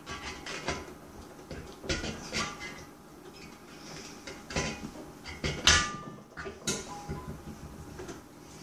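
Rubber stopper being worked and pushed into the neck of a glass carboy: a scatter of knocks and rubbing of rubber and hands against glass, the loudest a sharp knock with a brief ring a little before six seconds in.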